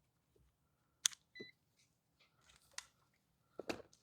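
A few faint clicks and taps of multimeter test leads being handled, with one brief high beep about a second and a half in from the meter in continuity mode.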